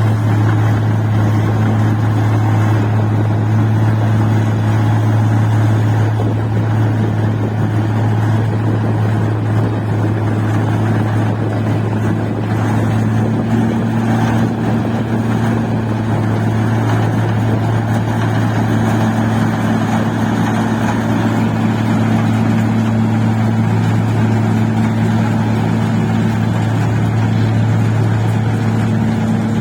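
Engine-driven rice machine running steadily at constant speed: a loud, even low hum with a steady drone above it.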